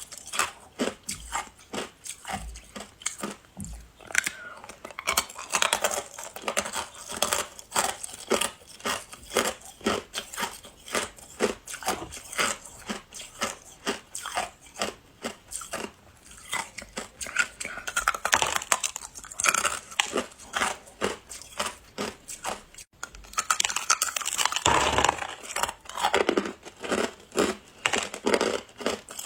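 Ice being bitten and chewed, a continuous crisp crunching made of many rapid cracks, with louder, denser spells past the middle and near the end.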